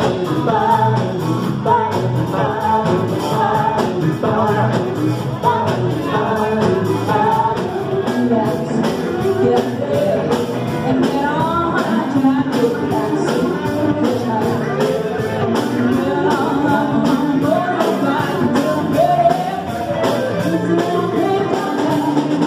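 Live band playing: a woman singing lead into a microphone over electric guitar and a drum kit, amplified through PA speakers.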